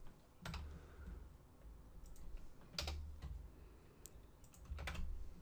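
A handful of scattered computer keyboard keystrokes, including line breaks being typed, spaced out with pauses between them.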